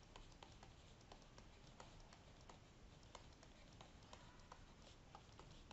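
Near silence broken by faint, irregular clicks, several a second: a stylus tapping on a tablet screen while handwriting an equation.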